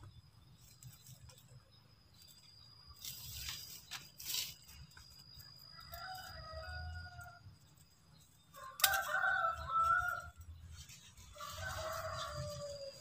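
Rooster crowing three times, each crow a second or so long, the first about six seconds in. A short rustle comes a few seconds before the first crow.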